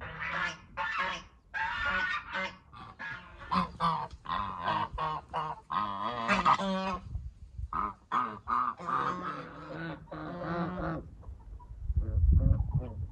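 Domestic geese honking repeatedly in short calls. A loud low rumble comes near the end.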